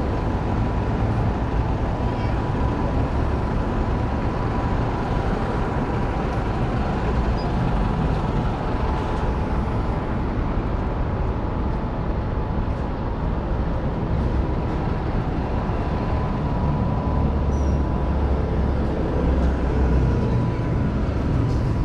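Steady city street traffic: cars and buses running along a wide avenue, with a thin steady whine running through the noise.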